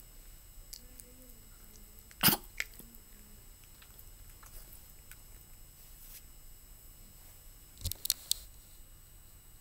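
A small dog moving about on a bed and being rubbed: a sharp short sound about two seconds in, a fainter one just after, and a quick cluster of three short sounds near eight seconds, over quiet room tone.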